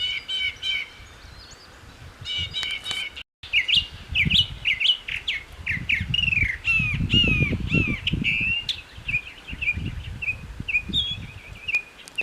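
Northern mockingbird singing a varied run of phrases: harsh, jay-like notes in the first three seconds, imitating a blue jay, then quick series of down-slurred whistled notes repeated several times each. A low rumble runs under the song in the middle, and the sound drops out briefly about three seconds in.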